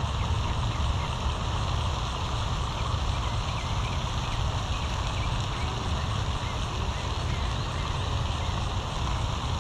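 Steady low outdoor rumble with faint, scattered bird calls over it.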